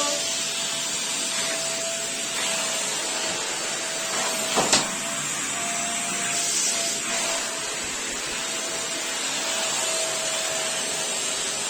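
Small vacuum cleaner running steadily, a hiss of airflow with a thin steady whine from its motor, and a single knock a little under five seconds in.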